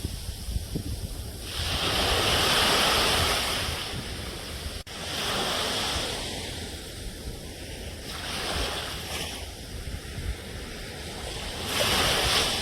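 Sea waves breaking on the shore, the surf swelling into a louder rush every few seconds and then easing back.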